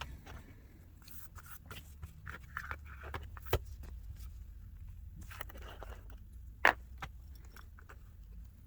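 Light clicks, taps and scrapes of small repair tools and parts being handled while an iPhone 8 is taken apart, with a sharper click about three and a half seconds in and a louder one near seven seconds, over a low steady hum.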